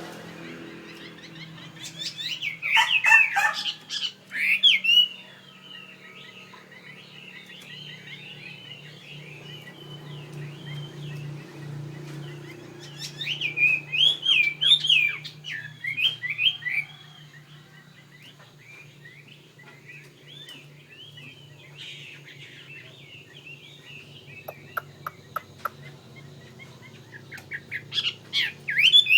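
Chinese hwamei (họa mi) singing: loud, varied whistled phrases in bursts about two seconds in, around thirteen seconds in and again near the end, with quieter chattering between. A steady low hum runs underneath.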